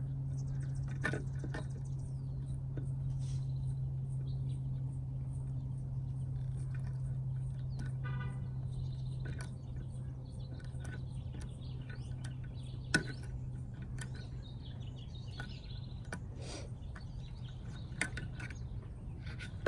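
A steady low hum with faint bird chirps and a few sharp clicks, the loudest about two-thirds of the way through. Among the clicks is a hand crimping tool squeezing a metal connector onto the reverse-light wires.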